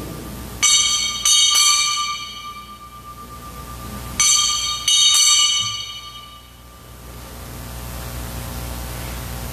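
Altar bells rung at the elevation of the chalice during the consecration. Two rounds of bright ringing, each of two or three quick strokes that die away, the first about half a second in and the second about four seconds in.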